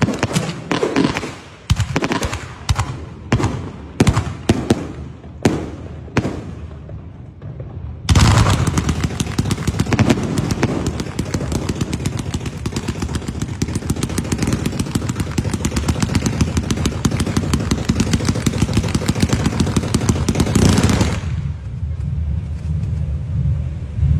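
Fireworks: a quick series of sharp bangs from bursting shells, about two a second, then about eight seconds in a dense, continuous crackling sets in and runs on for over ten seconds, easing near the end.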